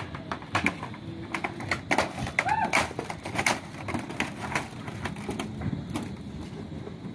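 Irregular knocks and clatter of people working on a corrugated metal roof: footsteps on the sheets and objects being moved and set down.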